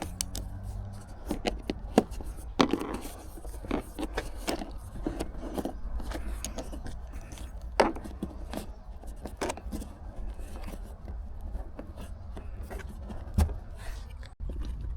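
Hands working a dash cam cable into a car's rubber weather stripping and plastic interior trim: scraping and rubbing with irregular sharp clicks, a few louder snaps about 2 s, 8 s and 13 s in, over a low steady hum.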